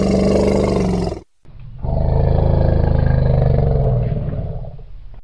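Asian elephant roaring: two long, loud, low calls, the first ending about a second in and the second, slightly lower and longer, starting about two seconds in and fading away.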